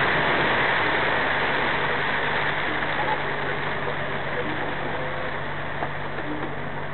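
Steady drone of a truck's engine and its tyres on a wet road, heard inside the cab while cruising.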